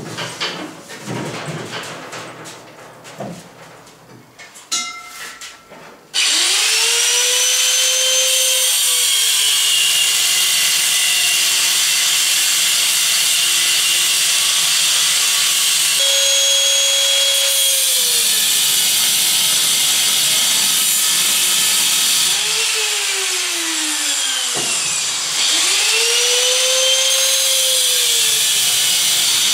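Knocks and clunks as a steel gas bottle is lifted and set down on the bench, then about six seconds in an angle grinder starts and cuts into the bottle's steel, loud and steady. Its pitch sags as the disc bites into the metal under load and rises again when it eases off, several times over.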